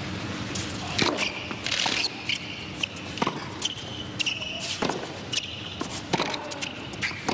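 Tennis rally on a hard court: a serve about a second in, then racket strikes on the ball about every one and a half seconds, with short high squeaks of the players' shoes on the court between shots.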